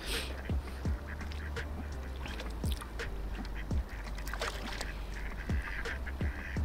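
Waterfowl calling in short repeated calls, about one a second, over a steady low rumble.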